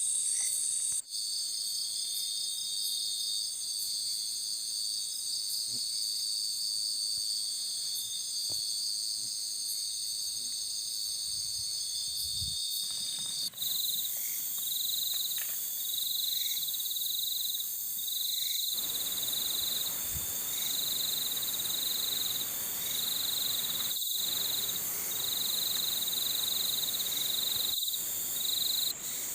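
Night insect chorus of crickets and other insects: steady high-pitched trilling. After about halfway, a pulsing call repeats every second or two.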